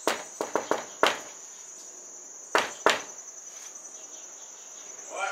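Knuckles knocking on a door: a quick run of about five knocks, then two more knocks about a second and a half later, over a steady high-pitched whine.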